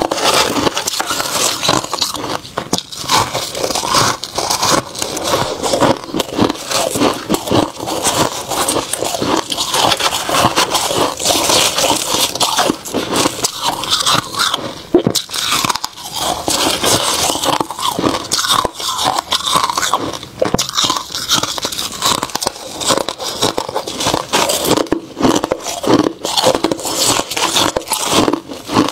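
Freezer frost being bitten and chewed, close-miked: dense, crackly crunching with no pause.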